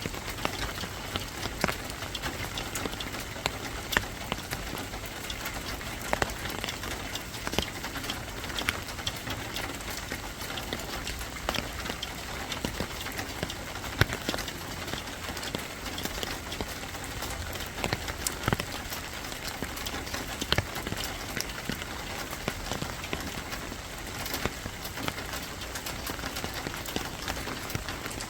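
Steady rain falling, with many irregular sharp drops striking a hard surface close by.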